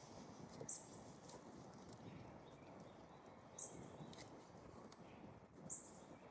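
Near silence, with three brief, faint high chirps spread a couple of seconds apart.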